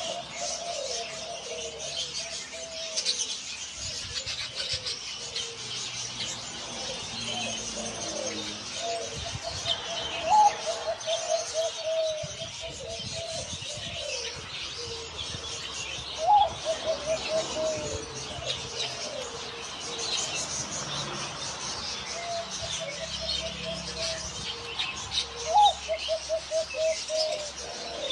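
Caged zebra dove (Java dove) cooing: repeated phrases of rapid staccato coos, some opening with a higher note, the voice of a contest bird praised for its full mid-pitched tone. Other small birds chirp busily at a higher pitch.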